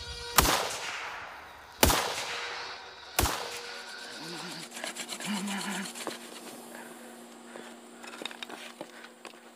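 Three rifle shots about a second and a half apart, each with a trailing echo, followed by quieter scattered clicks and ticks.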